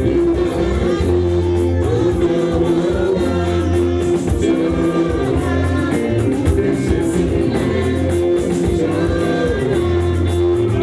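Church choir singing with live band accompaniment: a bass line that repeats about every two seconds, with a steady percussion beat.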